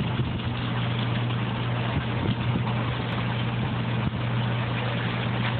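Oyster-seed FLUPSY upweller running: a steady low motor hum under the constant splash of water pouring from its outflow pipes into the water below.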